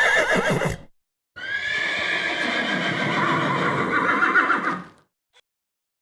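Horse whinnying twice: a short call that ends about a second in, then a longer, quavering whinny that stops near the end.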